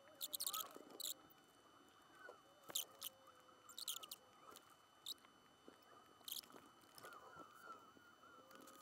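Faint small clicks and scratches of tweezers and fingers working on a portable MiniDisc player's circuit board and ribbon cables. They come singly or in short clusters with gaps between.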